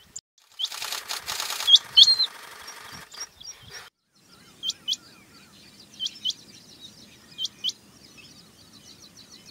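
Rain quail calling: short, sharp, upward-flicking notes given in pairs, a pair about every one and a half seconds. A loud rushing noise lies under the first few notes and cuts off suddenly about four seconds in.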